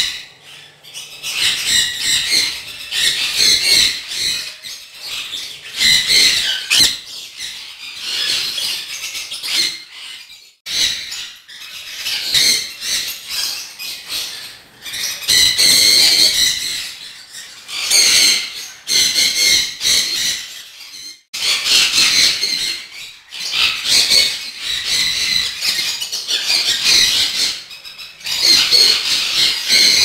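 Sun conures calling, giving high-pitched screeching calls in repeated bursts of one to a few seconds with short gaps between them.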